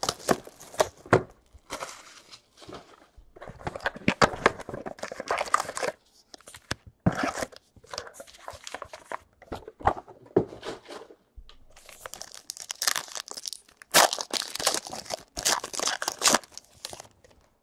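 Foil wrapper of a baseball card pack being torn open and crinkled in the hands, in irregular bursts of tearing and crackling.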